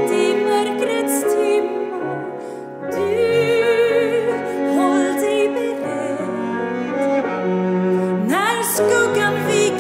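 Bowed cello playing a slow, sustained melody over grand piano accompaniment, with a quick upward slide about eight seconds in.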